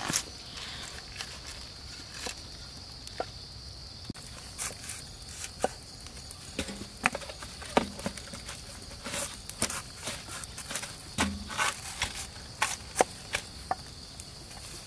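A cleaver cutting a pineapple against a wooden chopping board, then pineapple pieces set into a large aluminium pot, giving short sharp knocks and clicks at irregular moments throughout. A steady high insect drone runs underneath.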